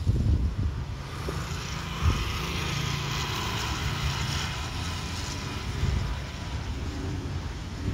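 Jet engines of a Boeing 737 MAX 8 on landing approach: a steady rushing whine with a faint tone in it, building about a second in and easing after about five seconds. Gusts of wind buffet the microphone underneath.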